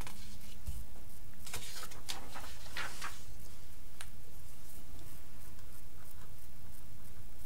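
Sheets of paper being moved and laid down on a desk: light rustles and soft scrapes, with a sharp tick about four seconds in. Under it runs a steady low hum.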